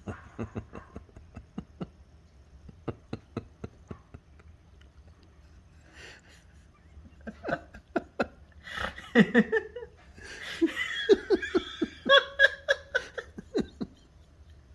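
A person laughing: soft, breathy chuckles in short pulses for the first few seconds, then louder, higher-pitched laughter from about eight seconds in that fades near the end.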